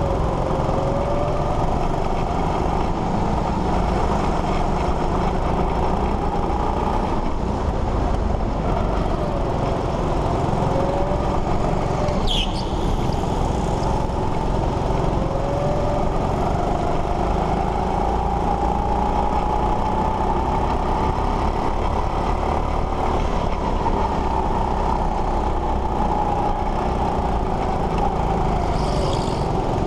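Go-kart motor running as the kart is driven around the track, its pitch rising and falling with the throttle, over a steady rumble. A brief high squeal comes about twelve seconds in and another near the end.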